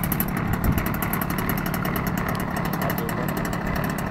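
Small engine of a radio-controlled offshore powerboat idling steadily.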